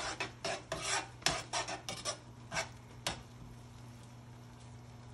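Kitchen tongs scraping and clicking against a large skillet while stirring a thick cream sauce, a quick run of strokes for about three seconds. The strokes then stop, leaving only a faint steady low hum.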